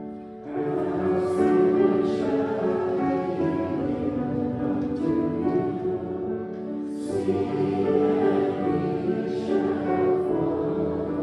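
Church congregation singing a hymn, a new phrase starting about half a second in.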